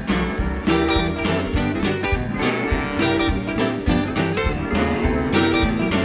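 Western swing band playing an instrumental rag live, with mandolin, electric mandolin and electric guitars over a steady bouncing beat.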